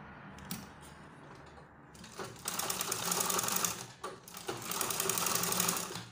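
Treadle sewing machine stitching across the joined ends of an elastic band. A rapid run of stitches starts about two seconds in, breaks off briefly around four seconds, then runs again until near the end.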